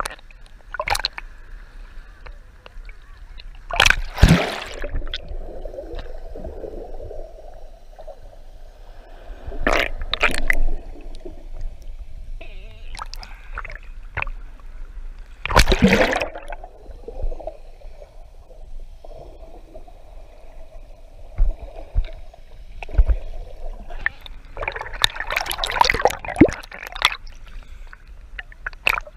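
Sea water splashing and sloshing around a GoPro action camera held at the surface, with loud splashes about 4, 10 and 16 seconds in and a run of them near the end, and a steady wash of moving water in between.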